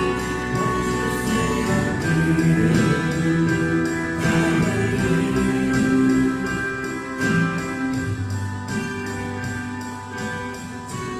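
Live contemporary worship band: keyboard, acoustic guitar and bass guitar with vocalists singing into microphones. The music gets quieter over the last few seconds.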